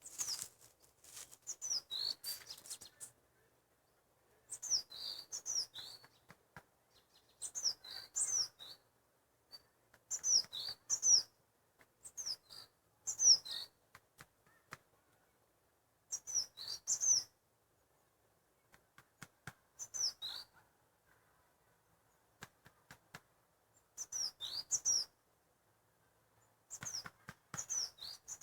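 A songbird singing short phrases of high, downslurred chirps, each about a second long and repeated every two to three seconds with quiet gaps between.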